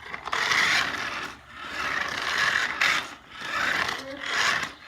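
Toy remote control car's electric motor and gears running in about four bursts of a second or so, rattling and whirring as it is driven.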